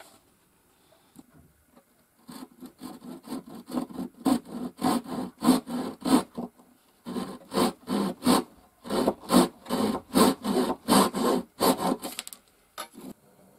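Flexible flush-cut hand saw cutting off the protruding ends of wooden dowels flush with a wooden panel, in quick back-and-forth strokes about three a second. It starts about two seconds in, pauses briefly twice, and stops shortly before the end.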